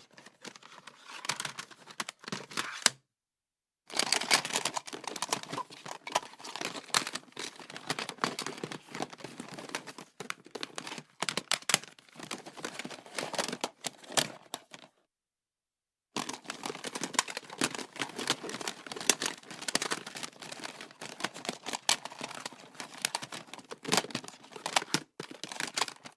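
Rummaging through an office stationery drawer: small metal and plastic items clicking, rattling and clattering against each other as they are shoved about. The rummaging comes in three stretches, cut off twice by a second or so of dead silence.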